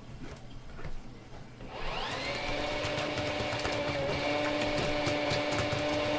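An electric motor starts about two seconds in, its whine rising as it spins up, then runs steadily with a hum and several high whining tones.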